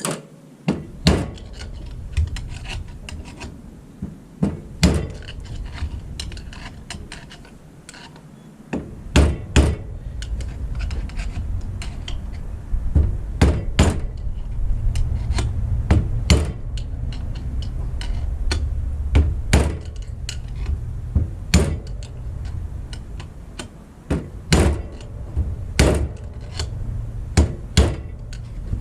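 Hammer blows, irregular and repeated, knocking the outer bearing race out of a 14 bolt axle's 8-lug hub. A low rumble runs under the strikes from about a third of the way in.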